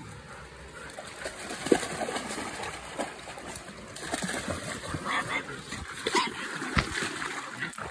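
Dogs wrestling and splashing in shallow muddy water, with irregular splashes and a few short dog yips.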